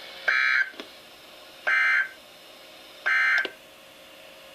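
Three short bursts of NOAA Weather Radio SAME data tones, each about a third of a second and about a second and a half apart: the end-of-message code that closes a weather-radio broadcast, here the Required Weekly Test.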